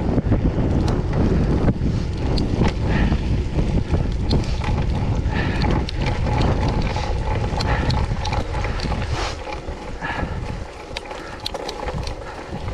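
Wind buffeting the microphone of a camera riding on a mountain bike, over rattles and clicks from the bike on rough, muddy trail. The wind rumble drops off near the end.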